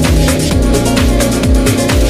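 Electronic dance music with a steady kick-drum beat, a little over two beats a second, over sustained synth tones.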